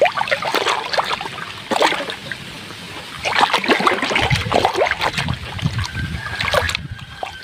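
Muddy water sloshing and splashing as a hand stirs and gropes through it, with irregular splashes that get busier and louder about three seconds in.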